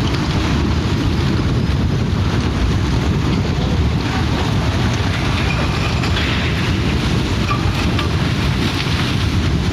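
Strong wind buffeting the microphone: a steady low rumble with a rushing hiss above it.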